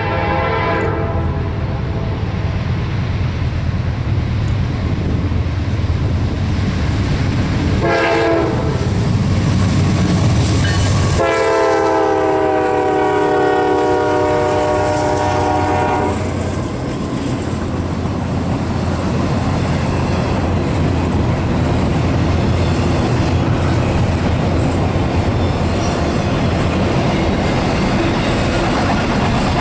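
Locomotive horn over the steady rumble and wheel clatter of a passing train: a blast dies away about a second in, a short toot comes about 8 seconds in, and a longer blast of about five seconds starts near the middle.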